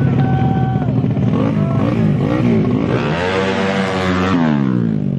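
Small motorcycle engines running loudly, one revving up and falling back in pitch about three to four seconds in.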